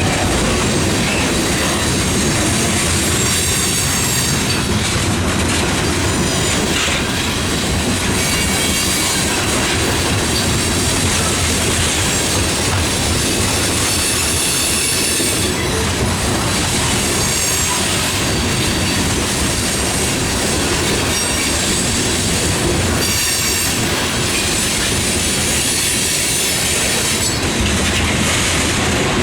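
CPKC freight train rolling steadily past, its wheels clattering over the rail joints with a thin, high wheel squeal that comes and goes.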